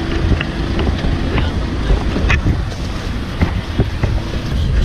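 Wind and handling noise rumbling on a hand-held camera's microphone, with scattered knocks and rustles as people climb through a van's sliding door.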